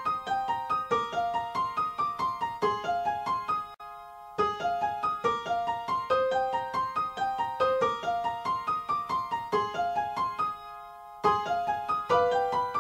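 Instrumental opening of a song: a keyboard with a piano sound plays a repeating arpeggiated figure of plucked-sounding notes, easing twice onto a single held note before the figure picks up again.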